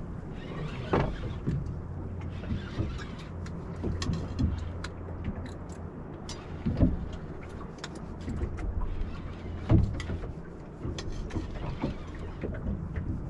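Boat engine idling with a low steady hum, under scattered short knocks and clicks.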